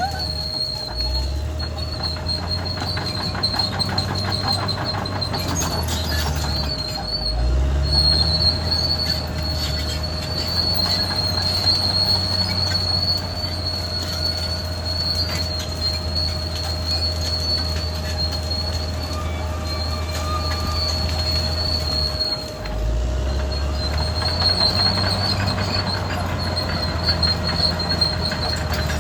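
Caterpillar D6R XL crawler dozer's diesel engine running under load, with a steady high-pitched squeal from its steel tracks. The engine note dips and climbs again three times: about a second in, around seven seconds in, and near the end of the third quarter.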